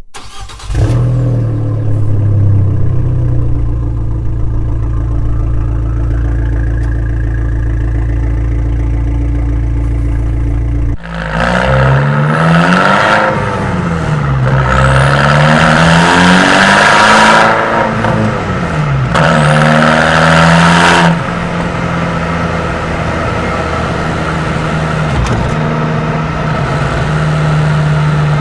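Abarth 595's 1.4 turbo four-cylinder through its Record Monza exhaust: the engine starts about a second in and idles steadily. From about halfway it is revved up and down several times over some nine seconds, then settles to a steady idle.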